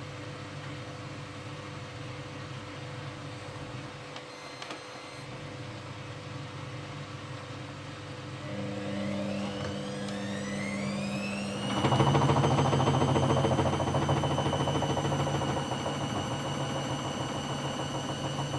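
Hoover Dynamic Next washing machine running, its motor whine rising in pitch as the drum speeds up, then holding at a steady high tone. The machine gets markedly louder about twelve seconds in and stays loud.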